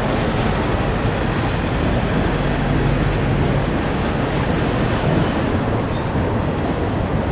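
Intermodal freight train rolling past close by: a steady, loud rush and rumble of steel wheels on the rails as spine cars carrying semi-trailers go by.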